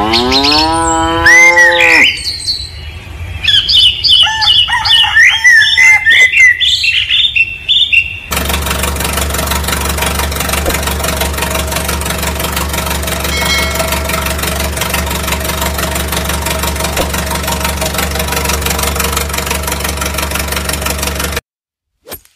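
A cow moos once, rising in pitch. Birds then chirp for several seconds. After that a tractor engine runs steadily for about thirteen seconds and cuts off suddenly.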